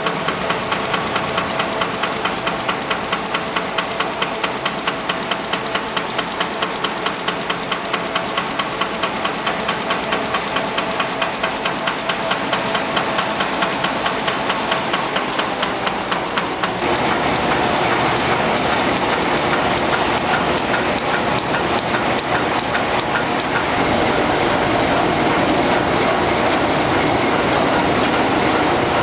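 Reel-to-pack continuous-stationery printing and converting machine running, with a fast, even clatter over a steady hum. About halfway through it becomes louder and noisier, and a few seconds later louder again.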